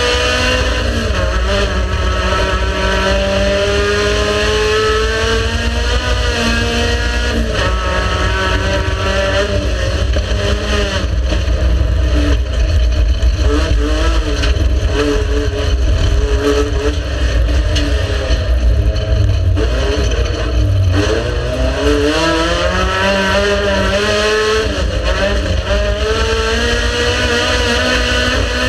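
Race car engine running hard and loud, revving up through the gears with sudden pitch drops at each shift. Around twenty seconds in the revs fall away as it slows, then climb again as it accelerates.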